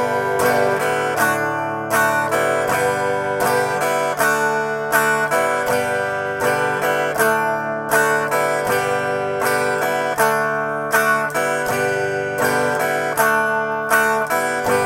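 Guitar strummed in a steady rhythm, changing back and forth between G and D chords. Each chord gets two down-strums, then a third strum on the open strings while the fretting hand lifts to move to the next shape.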